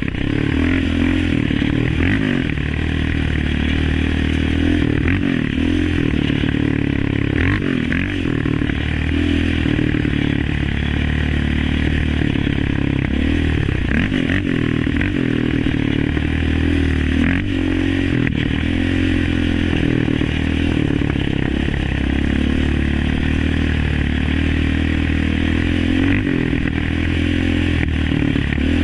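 Yamaha Raptor 700 ATV's single-cylinder four-stroke engine running through an Alba Racing aftermarket exhaust and race ECU tune, its pitch rising and falling as the throttle is worked on the trail. A few short knocks and clatter come through now and then.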